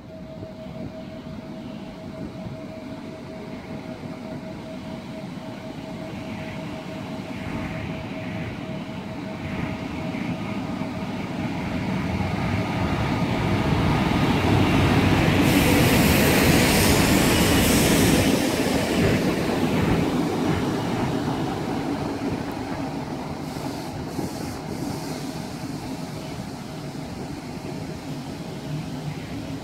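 A PKP Intercity EP09 electric locomotive running light, with no train behind it. It approaches and grows louder, passes close with a rush of rail and running noise about halfway through, then fades as it moves away.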